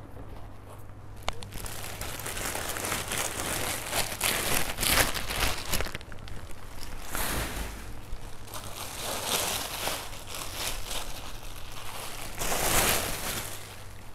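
Plastic bags crinkling and rustling in irregular handfuls as shoes are bagged and unwrapped, loudest about five seconds in and again near the end.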